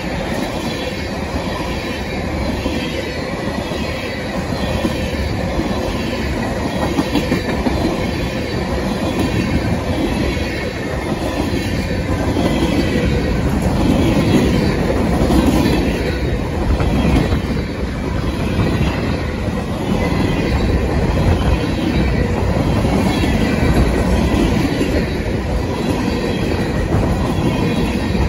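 Freight train of tank cars and centerbeam flatcars rolling past at close range: steady rumble of steel wheels on rail with clatter from the cars and a thin ringing squeal from the wheels.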